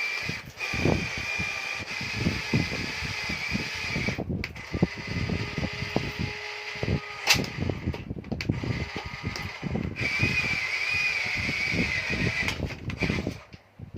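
Small electric motors of a radio-controlled construction toy whining steadily, with frequent clicks and knocks as it works; the whine drops out for a few seconds in the middle and comes back.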